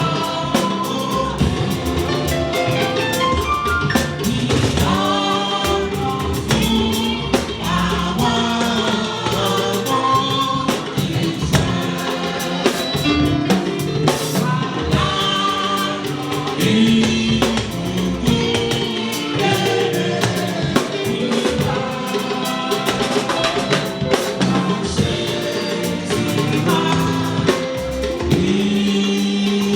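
Church choir and congregation singing a Yoruba hymn, backed by a drum kit and percussion.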